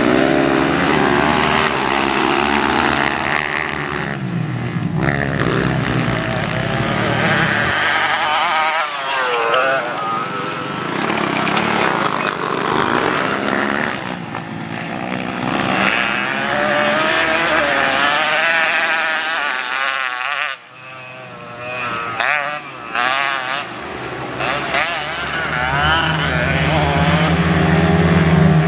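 Trail motorcycle engine being ridden hard, its pitch rising and falling again and again with the throttle, and briefly dropping off about two-thirds of the way through.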